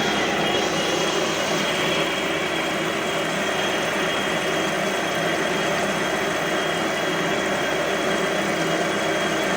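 CNC lathe running steadily while machining a metal flange: an even machine noise with several steady whining tones.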